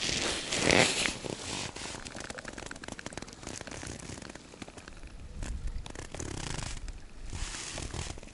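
Water splashing around a hand holding an asp (a river fish) in the shallows while it is released and revived. The splash is loudest about a second in, followed by quieter sloshing and the rustle and crackle of a jacket sleeve.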